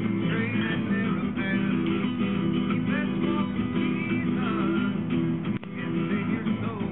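Acoustic guitar strumming in an acoustic string-band jam, with a higher melody line that slides and bends in pitch. A short click with a brief dip in level comes a little over halfway through.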